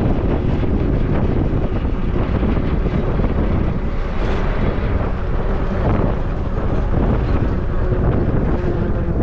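Wind buffeting the microphone at an open bus window, over the steady rumble of the moving bus's engine and tyres.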